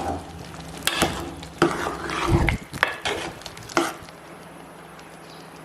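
A spoon stirring curry in a cooking pot, knocking against the pot in several sharp clacks over the first four seconds, with a low thump among them, then quieter.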